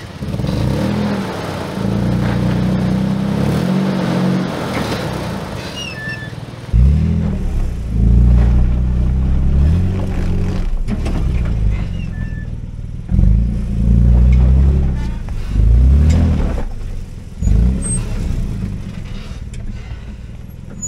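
The engine of a 2010 Toyota Tacoma is working hard as the truck drives over small dirt mounds. It revs up in several separate surges, rising in pitch with each one, with lulls between them.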